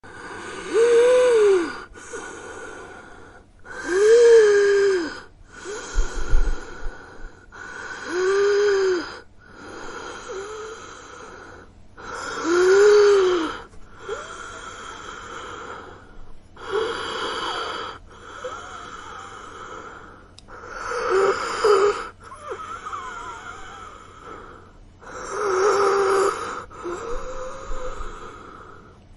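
A person breathing with a wheeze, the sound of breathing distress: about fourteen drawn-out breaths in a steady rhythm, alternating louder and quieter. The louder breaths carry a whistling tone that rises and then falls.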